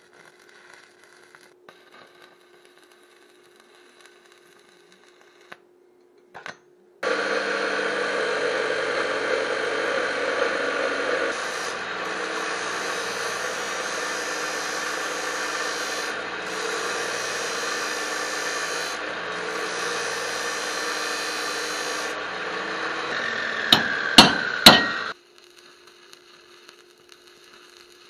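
Abrasive cut-off saw (chop saw) cutting steel: the saw starts about a quarter of the way in and runs steadily with a gritty grinding noise for about eighteen seconds. Three sharp knocks come just before it stops.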